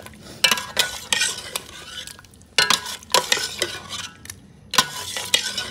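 A metal slotted spoon scraping and knocking against the sides of a steel pot as chicken karahi is stirred and fried in its masala gravy, which sizzles between the strokes.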